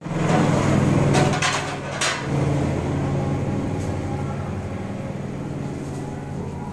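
Steady low mechanical hum, with a few knocks and a short whoosh in the first two seconds.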